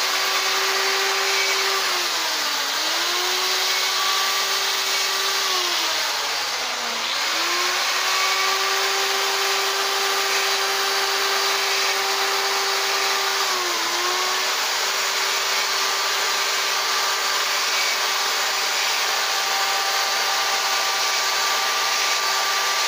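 Small electric chainsaw running as it cuts feather detail into a wooden owl carving. Its steady motor whine sags in pitch three times and then recovers as the chain bites into the wood.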